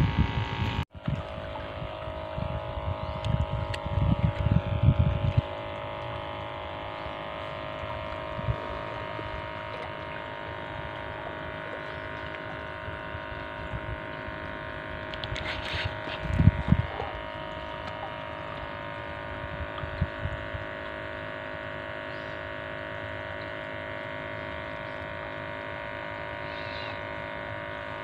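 A steady motor hum that holds several fixed pitches. Low wind rumble buffets the microphone for the first few seconds, and a short thump comes about halfway through.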